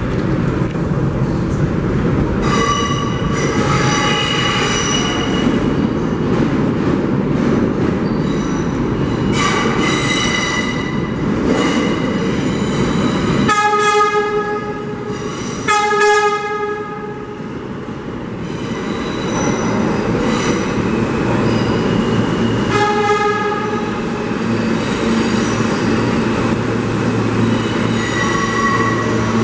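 New York City subway D train running through the tunnel and into the station, with a steady rumble and spells of high-pitched wheel squeal on the curved track. About halfway through come two short horn blasts.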